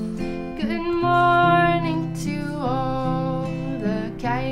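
Background music: acoustic guitar playing under a sung melody, with long held notes that slide in at their starts.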